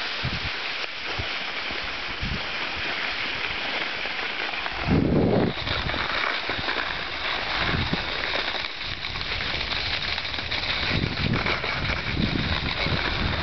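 Steady hiss of sliding over snow, with wind rumbling on the microphone and a short loud low burst about five seconds in.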